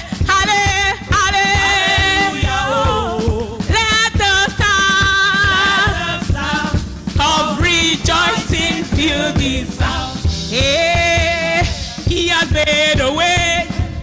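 Live gospel worship song: a woman singing into a microphone, holding notes with vibrato over a band with a steady beat.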